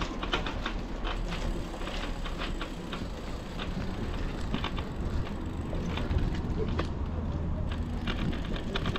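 Brompton folding bike rolling over stone flagstones and cobbles, its frame and fittings rattling in irregular clicks over a steady low rumble of the tyres.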